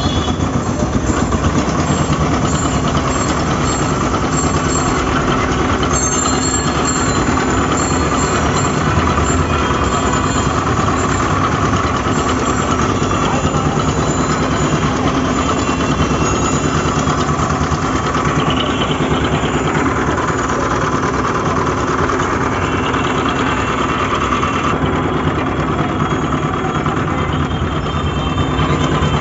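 Motor-driven sugarcane juice crusher running steadily, its steel rollers and belt-driven pulley wheel turning with a constant machine hum as cane is crushed.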